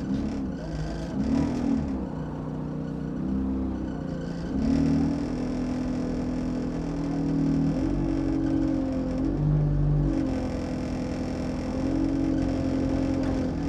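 Alexander Dennis Enviro200 Dart single-deck bus engine heard from inside the bus. Its pitch climbs and drops several times as it pulls along, over a low road rumble.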